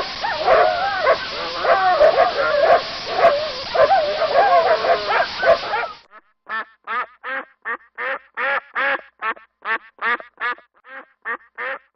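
Ducks quacking: first a dense, overlapping chorus of many quacks over a noisy background, then, after a short break about six seconds in, a run of separate quacks at about three a second.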